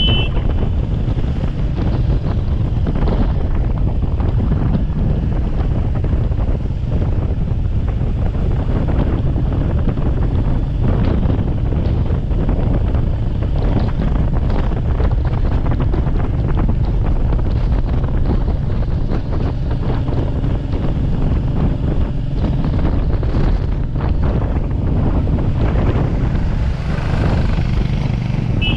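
Steady wind rush on the microphone of a moving motorcycle, with road and engine rumble underneath. A short horn beep sounds right at the start and again right at the end.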